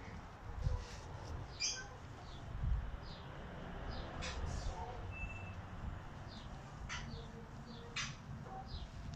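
Birds chirping, with short high calls scattered through, over a low rumble, and a few sharp clicks about 4, 7 and 8 seconds in.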